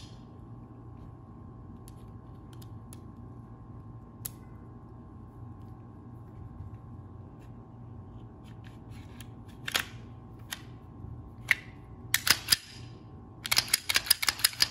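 Clicks and clacks of a Glock pistol being reassembled: a few scattered sharp clicks as the slide assembly is handled and seated, then a quick run of loud clicks near the end as the slide is run onto the frame. A steady low hum runs underneath.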